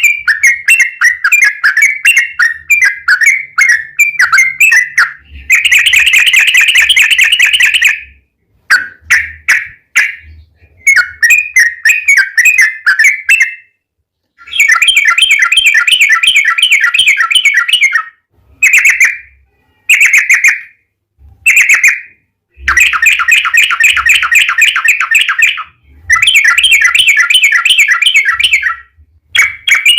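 Yellow-vented bulbul (trucukan) singing loudly: clusters of quick chirping notes alternating with long, very fast rolling trills of a few seconds each, broken by short pauses.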